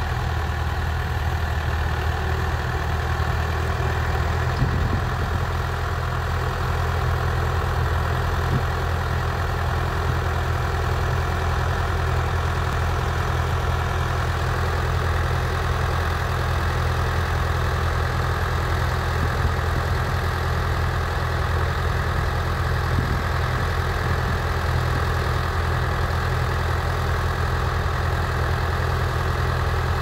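Massey Ferguson tractor engine idling steadily.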